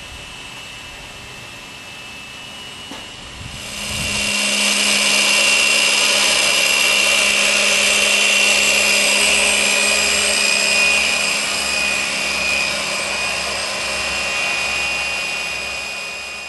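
Dual brushless electric starter motors spinning the turbocharger rotor of the GR-7 turbojet, a steady high-pitched whine. It grows much louder about four seconds in, then slowly tapers off near the end.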